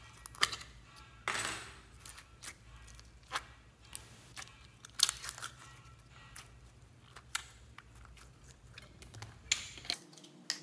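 Plastic slime tubs being handled and opened, giving a string of sharp clicks and crackles, with a short rustling swish about a second in, as jelly slime is tipped out into a glass bowl.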